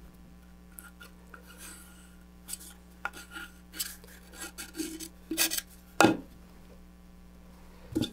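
Wooden stir stick scooping and spreading epoxy: a run of short scrapes and rubs, with a sharp knock about six seconds in and another near the end.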